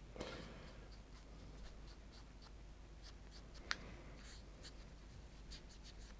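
Faint scratching of a paintbrush dry-brushing a small painted model, with scattered light clicks and one sharper click a little after the middle.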